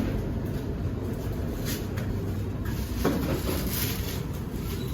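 Steady low rumble with a few faint knocks, the most noticeable about three seconds in.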